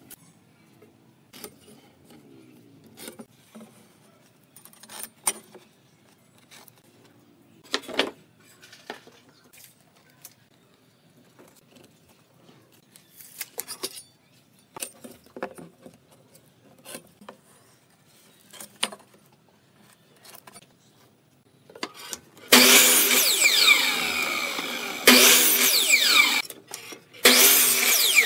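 Scattered light clicks and knocks of a steel tape measure and wood being handled on a bench. About 22 seconds in, an electric miter saw starts and cuts wood in three loud bursts, its pitch gliding as the motor spins up and down.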